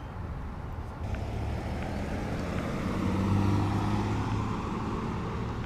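Low, steady hum of a road vehicle with noise over it, swelling about three to four seconds in and easing off again.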